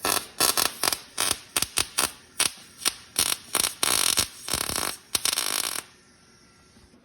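Wire-feed welder arc crackling in many short stop-start bursts, stitch-welding a steel engine mount, with a longer final run that cuts off about six seconds in.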